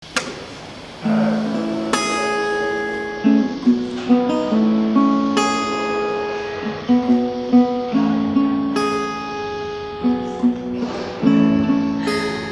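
Acoustic guitar with a capo playing an instrumental intro, starting about a second in: picked notes over ringing chords in a phrase that repeats about every three and a half seconds.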